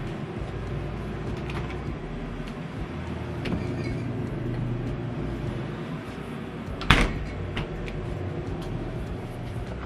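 Handling at an open glass-door drinks cooler as a plastic drink bottle is taken from a wire shelf: scattered light clicks and rattles over a steady low hum, with one sharp knock about seven seconds in.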